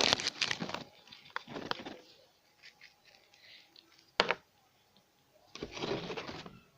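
Slime mixture of glue and detergent being stirred in a small container, with bursts of scraping and small clicks of the utensil against it, and one sharp knock about four seconds in.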